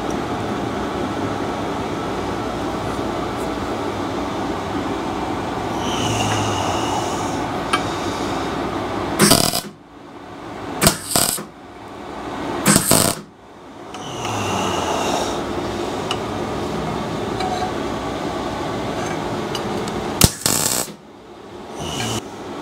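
MIG welder striking short tack welds on a steel lug: brief crackling bursts of the arc, about four close together in the middle and two more near the end, with a steady hiss in between.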